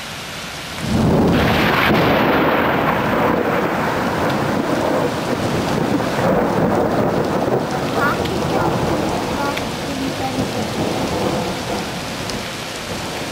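A loud thunderclap about a second in, its rumble dying away slowly, over heavy rain and hail falling steadily.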